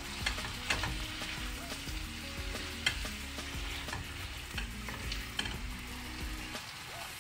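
Baby bok choy and ground pork sizzling in a nonstick wok while a spatula stirs and tosses them, with repeated short scrapes and taps of the spatula against the pan.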